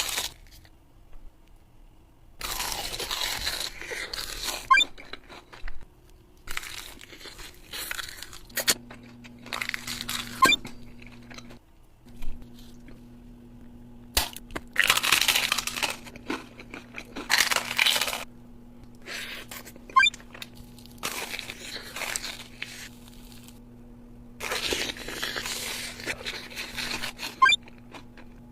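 Crispy sandwich bread crunching in repeated noisy bursts, each lasting up to a couple of seconds. A steady low hum comes in about a third of the way through.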